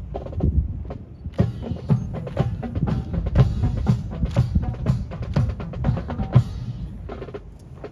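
Cadet rifle drill: dense, irregular sharp wooden clacks over low thumps, from rifles being slapped and snapped and boots being stamped, with a short lull near the end.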